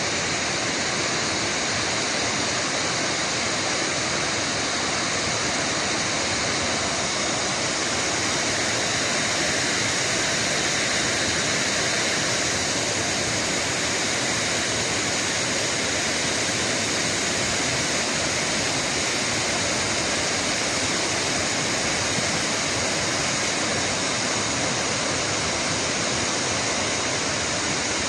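Pongour waterfall's water falling, a steady loud rush.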